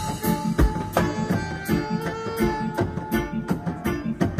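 Live Nyabinghi reggae band playing: hand drums beat a steady rhythm under guitar and a long held high note, with two deep bass-drum thumps in the first second.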